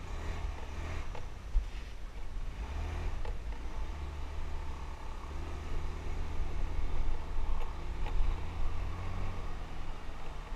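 Small motorbike engine running at low speed along a sandy dirt track, its low hum growing steadier from about four seconds in, with an occasional short knock.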